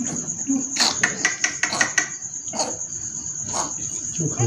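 Steady high-pitched insect chirring, with a quick run of sharp clicks and taps about a second in and a few more later.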